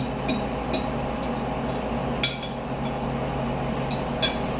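Metal forks clinking and scraping against dinner plates while eating: scattered sharp clicks, the loudest about two seconds in and a quick cluster near the end.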